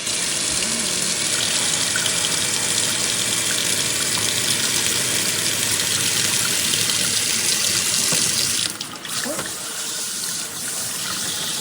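Water running hard from a faucet through a hose sprayer attachment, a steady rush that starts suddenly and gets a little quieter about nine seconds in.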